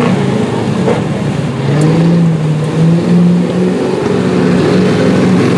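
Engine of an open-top off-road 4x4 running hard under load as it churns through a mud pit, its pitch dipping and then climbing again.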